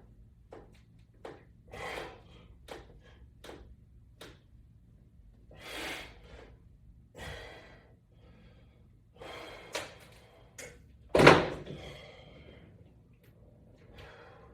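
Short breathy exhales and scattered clicks and light knocks from a person working resistance bands with hand grips during pull-down reps, with the loudest breath or thump about eleven seconds in.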